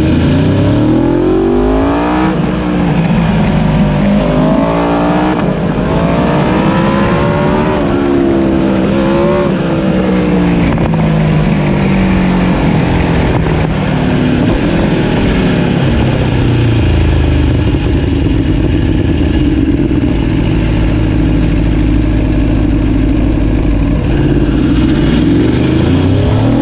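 Aprilia Tuono sport motorcycle engines accelerating hard. The pitch climbs and drops back at each gear change several times in the first ten seconds, then holds steadier and lower before rising again near the end, over steady wind rush and tyre noise.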